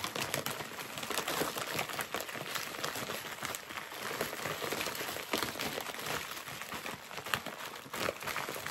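Plastic wrapping of a Hershey's milk chocolate bag crinkling as a hand rummages in it for a wrapped chocolate, a continuous run of small crackles and clicks.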